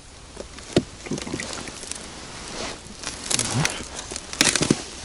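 Handling noise as a hooked perch is pulled up through an ice-fishing hole: rustling with scattered sharp clicks and taps, the loudest cluster of clicks near the end as the fish comes out of the hole.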